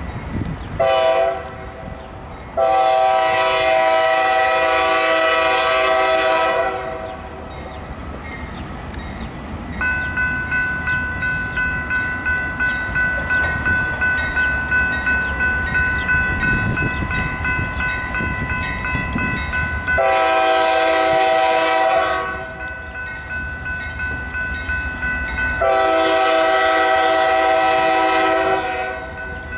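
Nathan K5H five-chime air horn on an approaching CSX freight locomotive, sounding a short blast, a long blast of about four seconds, and later two more long blasts, over the low rumble of the train. Between the horn blasts a crossing bell rings steadily, pulsing about once a second.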